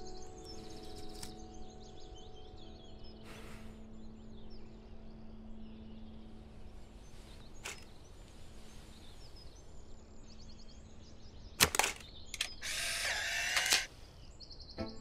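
Polaroid instant camera taking a picture: a sharp shutter click, then a mechanical whirr lasting about a second as the motor pushes out the print, near the end. Faint bird chirps are heard before it.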